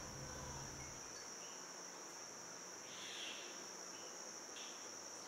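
Quiet room with a faint, steady high-pitched insect-like trill running throughout; a low hum cuts out about a second in.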